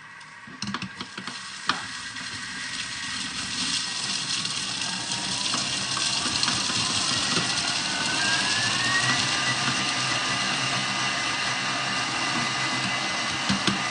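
Thermomix TM6 motor chopping a bowlful of herbs, seeds and lemon, after a few clicks near the start. Its whine rises in pitch as the blade speeds up, then holds steady at full speed.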